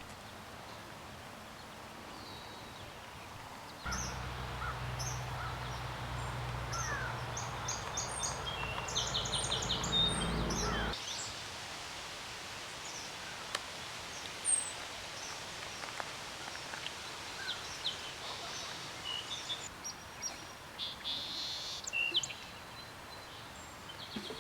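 Birds calling and chirping over outdoor background noise, with short high notes scattered throughout. A low rumble comes in about four seconds in and cuts off about eleven seconds in, while the calls are densest.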